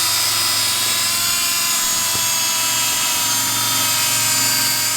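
A small motor running steadily at a high, even whine with a strong hiss, without letting up.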